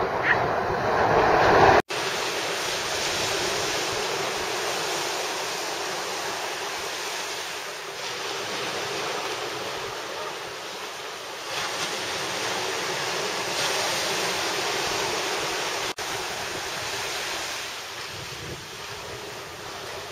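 Small waves breaking and washing through the shallows, with wind on the microphone. The wash is loudest in the first two seconds, then drops out abruptly twice, about two seconds in and again near the end.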